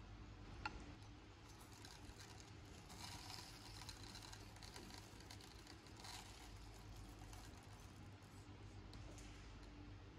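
Faint, light pattering of toasted sesame seeds and desiccated coconut sprinkled over a pudding in a glass jar and onto a wooden board, heaviest twice in the middle. It comes after a single small click of a metal spoon against the glass about a second in.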